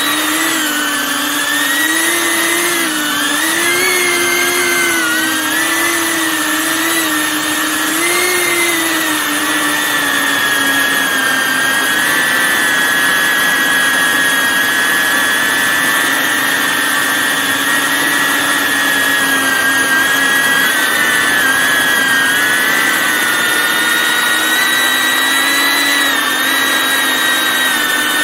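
Drone's motors and propellers running with a high whine. The pitch wavers up and down over the first nine seconds or so, then holds steady.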